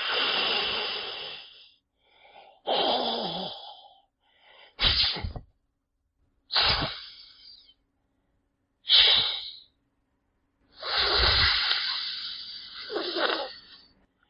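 Snake hissing in six separate hisses, each starting sharply and fading: a longer hiss, then several short sharp ones, then a long hiss of about three seconds near the end.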